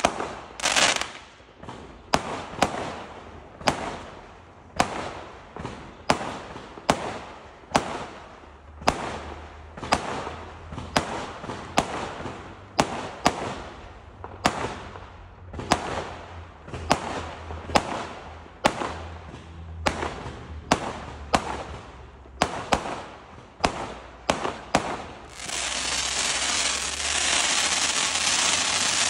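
Fireworks going off in a quick string of sharp bangs, about one or two a second. Near the end the bangs give way to a loud continuous hiss.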